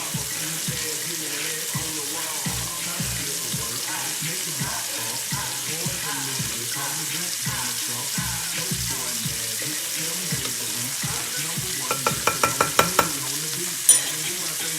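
Chicken breasts frying in butter in a pan, with a steady sizzling hiss. Near the end comes a quick run of about eight taps, then a single sharp clack.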